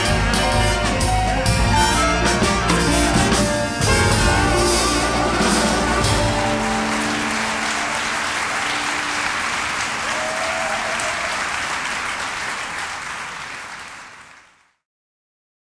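Live orchestra playing the closing bars of a piece, then audience applause that takes over as the music ends. The applause fades and cuts off suddenly near the end.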